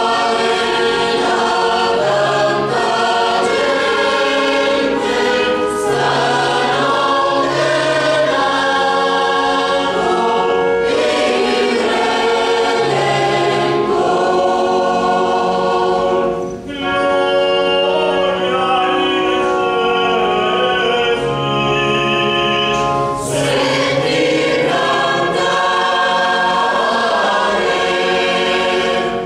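Mixed choir of men's and women's voices singing a song in parts, in long held notes, with a brief break between phrases about halfway through.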